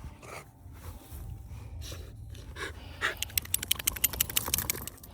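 Heavy panting breaths close to the microphone, one about every half second. About three seconds in, a quick run of sharp clicks joins them for a couple of seconds.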